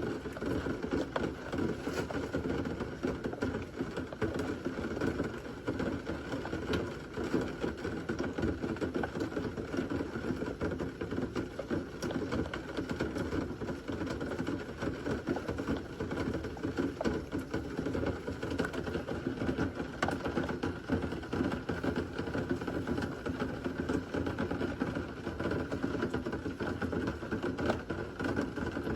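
Steady heavy rain with a dense, fine pattering of drops; no thunder stands out.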